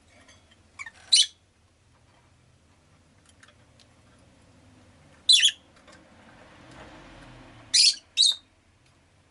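Rosy-faced lovebird giving short, sharp, high-pitched chirps: one about a second in, one past the middle, and two in quick succession near the end. Faint street noise swells and fades between the later calls.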